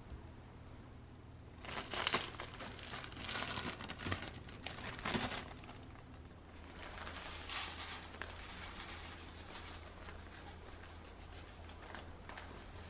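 Packaging crinkling and rustling as it is handled, in irregular bursts over the first six seconds, then a softer, steadier rustle; a low steady hum runs underneath.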